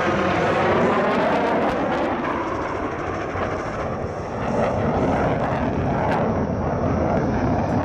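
Military jet flying past low, a loud rushing roar that eases about three seconds in and swells again as the aircraft comes by.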